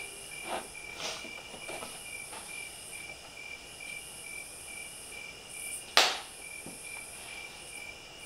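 Crickets chirping in a steady, evenly pulsing rhythm, with a single sharp knock about six seconds in.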